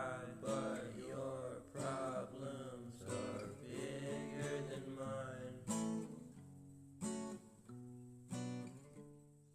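Background music on acoustic guitar: plucked chords that ring and fade, thinning out to a few separate chords in the second half.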